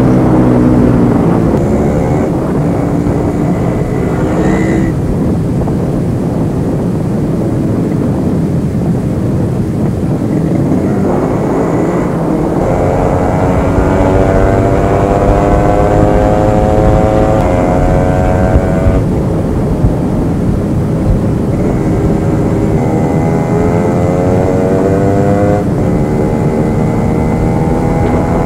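Yamaha RX100's single-cylinder two-stroke engine and exhaust under acceleration, its pitch climbing through each gear and dropping sharply at the shifts, three times.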